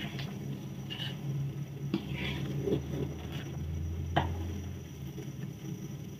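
A spatula stirring a thick coconut-milk and pandan agar mixture in an aluminium wok, scraping over the metal with a few sharp knocks against the pan, about two and four seconds in, over a steady low hum.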